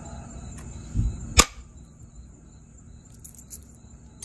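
Copper bopper striking the edge of a jasper preform: a dull thump about a second in, then one sharp crack as a flake comes off. Crickets chirp steadily in the background.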